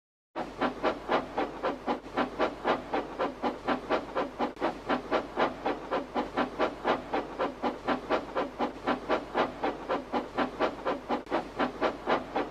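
Steam locomotive chuffing at an even pace of about four chuffs a second, each a hissy puff of exhaust over a steady low rumble. It starts and stops abruptly, as a dubbed-in sound effect would.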